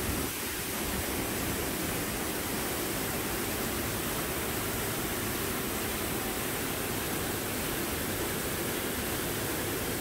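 Water of a large man-made waterfall pouring down in a steady, even rush, heard from the walkway behind the falling curtain of water.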